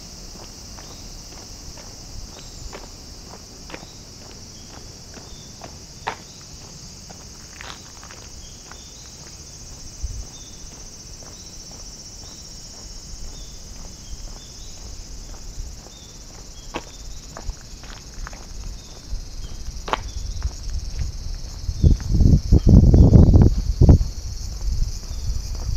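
Bear cicadas (kumazemi) calling in a steady, continuous chorus. Scattered short clicks, and a loud low rumble near the end.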